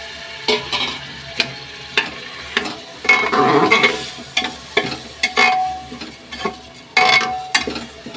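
Soaked rice being stir-fried in hot oil with cumin in an aluminium pressure cooker: a metal spoon scrapes and knocks against the pot again and again, some strokes ringing briefly, over a faint sizzle. There are longer stretches of scraping about three seconds in and again near seven seconds.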